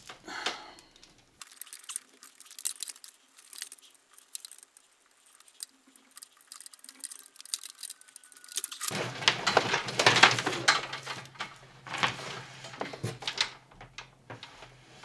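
Plastic-insulated electrical wire rustling, scraping and clicking as a tangled coil is pulled and shaken apart by hand, in irregular bursts that are thickest and loudest about two-thirds of the way in.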